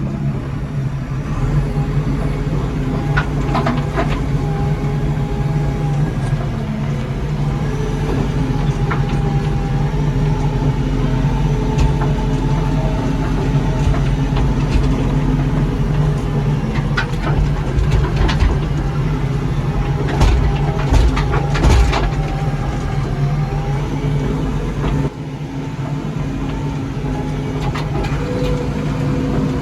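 JCB 3DX backhoe loader's diesel engine running steadily under way, with scattered knocks and rattles that bunch together a little past the middle.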